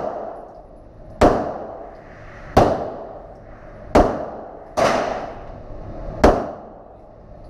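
Five pistol shots fired at an uneven pace, each a sharp crack followed by an echoing tail.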